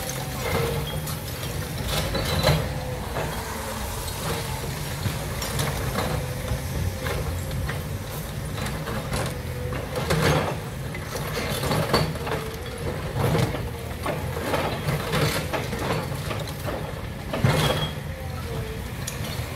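Demolition excavator's diesel engine running steadily with a wavering whine, under irregular knocks and clatter of rubble and metal. The loudest knocks come about ten and seventeen and a half seconds in.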